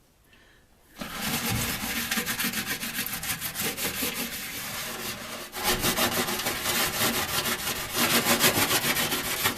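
Stainless-steel spiral scrubber (Norwex Spirinett) loaded with wet cleaning paste, scrubbing baked-on grime inside a microwave with rapid back-and-forth scratching strokes. The scrubbing starts about a second in and pauses briefly past the middle.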